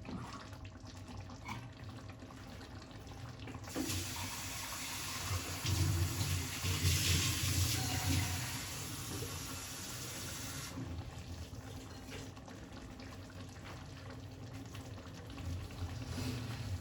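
Water running steadily for about seven seconds, starting about four seconds in, over a faint kitchen background.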